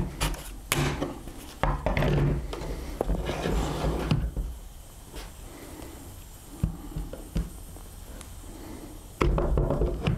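Handling knocks and clicks: a battery pack pushed and clicked into a cordless leaf blower, which is then laid on a plywood workbench, with scattered light taps and a louder stretch of handling noise near the end. The blower itself is not running.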